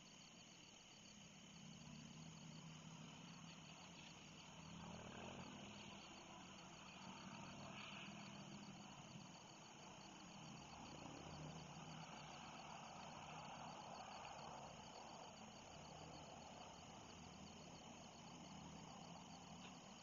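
Faint night insect chorus: crickets trilling steadily in a fast, even pulse, with a low faint hum underneath.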